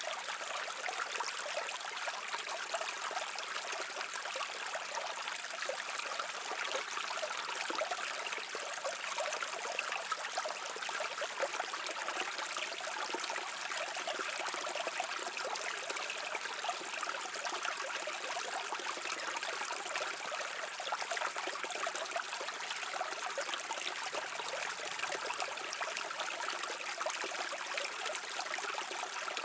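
Small stream babbling and trickling over rocks, a steady bright splashing rush.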